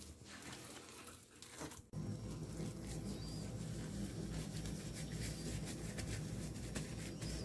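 A spoon stirring a soft kebab mixture in a stainless steel bowl with light scrapes and clicks. About two seconds in it gives way to louder, irregular squishing and plastic rustling as gloved hands squeeze and knead the mixture.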